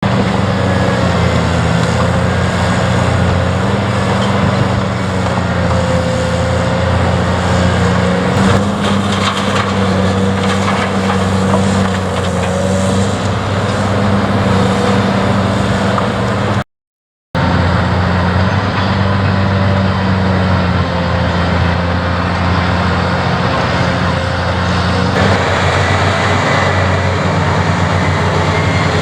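Heavy diesel engine of a Caterpillar construction machine running steadily, with a few knocks about eight to ten seconds in and a brief break of silence a little past halfway.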